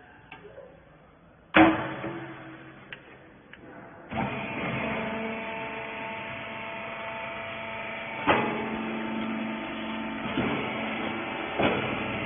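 Wiper bagging baler machine: a loud metallic bang about a second and a half in, then about four seconds in the machine starts up and runs with a steady hum, with two sharp knocks during the run.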